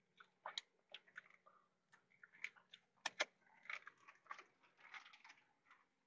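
A man chewing and eating at close range: soft wet smacks and clicks at irregular intervals, with two sharp clicks about three seconds in.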